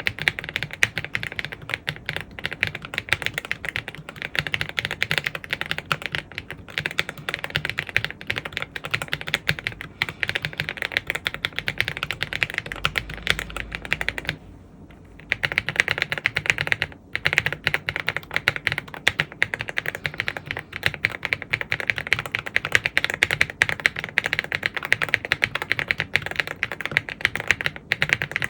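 Continuous fast typing on a Rainy75 mechanical keyboard with WOB switches: a dense stream of keystroke clacks. It breaks off for about a second just after halfway, then resumes.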